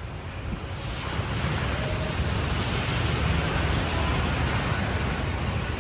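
Pacific Ocean waves breaking and washing, the surf noise swelling about a second in, over a steady low rumble.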